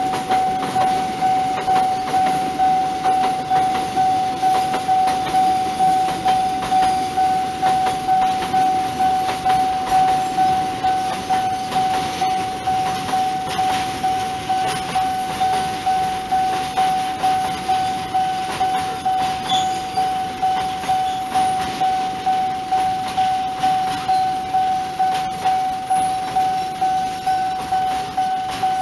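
Railway level-crossing warning bell ringing in an even, steady rhythm, a little under two strokes a second, as a long freight train of container and flat wagons rolls past with its wheels clattering over the rails.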